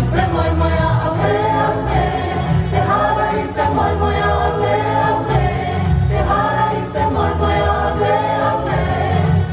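A group of voices singing together in harmony over instrumental backing with a strong bass line, as sustained choral song.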